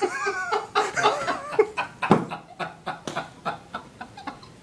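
Breathy, stifled laughter and chuckles in short wavering bursts, mixed with scattered rustles and clicks, and one sharp knock about two seconds in.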